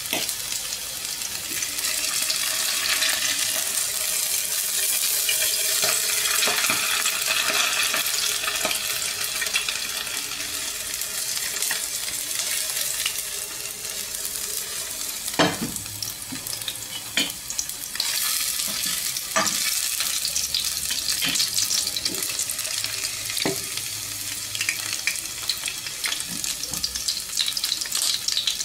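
Coho salmon steak sizzling steadily in hot oil in a non-stick frying pan, with a few sharp pops in the second half.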